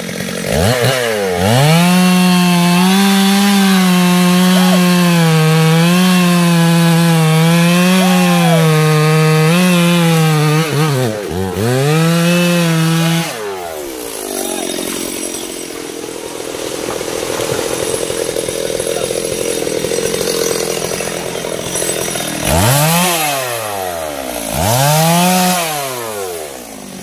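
Stihl chainsaw cutting into a teak trunk at full throttle, with a steady high engine note for about twelve seconds and a couple of brief dips. The engine then falls away to a quieter stretch, and near the end there are two short revs.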